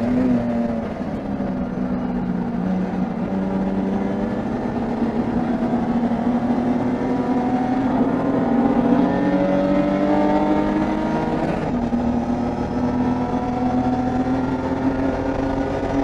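BMW 325is race car's straight-six engine pulling hard under acceleration, its pitch climbing slowly through a long gear. About twelve seconds in, a quick upshift drops the pitch, and it starts climbing again.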